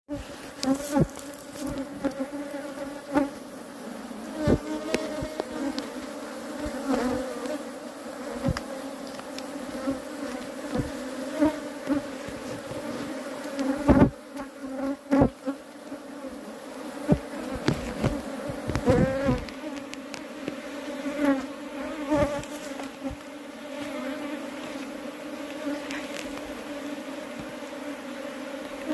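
A honey bee colony buzzing steadily in an opened wooden hive, the sound of bees disturbed by the hive being worked. Sharp wooden knocks and taps come from the frames being handled, the loudest about halfway through.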